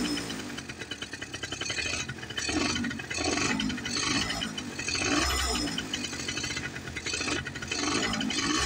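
Motorcycle engine at a cold start after two days standing: a rapid, uneven mechanical ticking and clatter that rises and falls in level.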